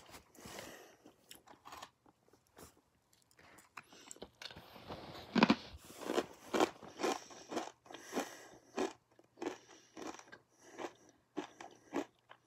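A person eating close to the microphone. There is a loud crunchy bite about five seconds in, then steady chewing about twice a second.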